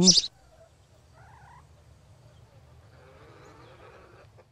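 A cartoon hen's squawking, clucking voice cuts off just after the start. The rest is quiet, with a faint short sound about a second in and a faint low murmur later on.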